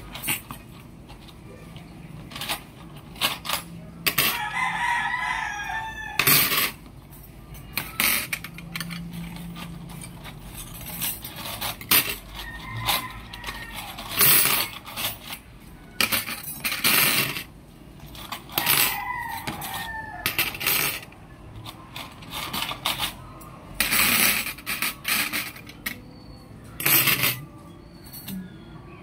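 Small metal tari (cockfighting gaff blades) clinking against each other and against a glass tabletop as they are picked out of a tin and laid down by hand, in many short, irregular clinks. A rooster crows in the background about four seconds in and again a little past the middle.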